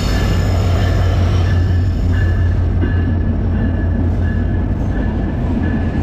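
Passenger train running past on the rails: a loud, steady rumble with a faint high squeal that comes and goes.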